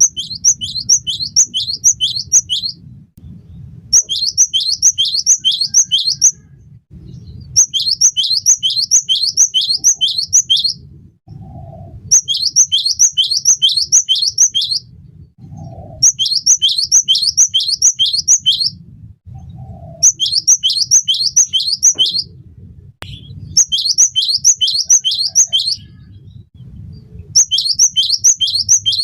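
Cinereous tit (gelatik batu) singing: bursts of fast, repeated high notes that sweep sharply down in pitch, each burst lasting two to three seconds, with short pauses between, over a faint low hum.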